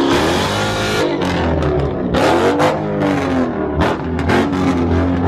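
A car engine being revved, its pitch rising and falling several times in a row.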